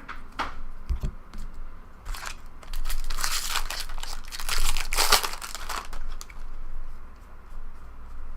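Foil wrapper of a trading-card pack crinkling as it is torn open and handled. A few light clicks come first, and the crinkling is loudest over a few seconds in the middle before it dies down.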